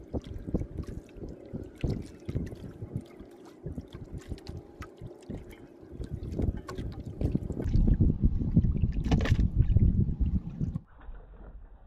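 Sea water slapping against a small fishing boat's hull, with many scattered knocks and clicks. A louder rumble of wind on the microphone comes in later and cuts off abruptly near the end.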